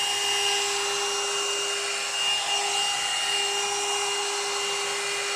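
One-step hot air brush hair dryer running: a steady rush of air with a motor whine, very noisy, like a vacuum cleaner.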